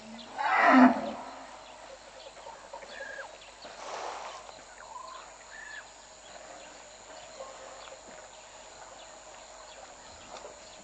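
An African elephant gives one short, loud call in the first second. A few faint short bird calls follow over the quiet open-air background.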